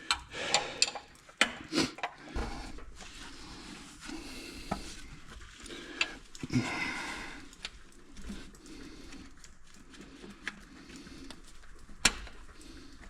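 Wrench and socket clinking and scraping on the steel bolts of an engine's main bearing caps, a string of scattered metal clicks and knocks as the bolts are worked loose.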